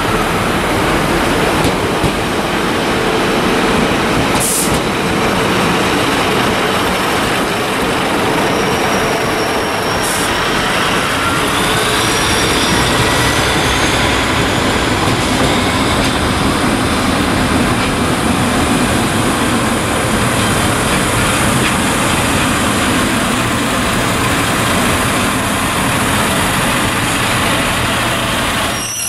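Northern Class 150 Sprinter diesel multiple units moving through a station: steady diesel engine and wheel-on-rail noise, with a whine rising in pitch partway through.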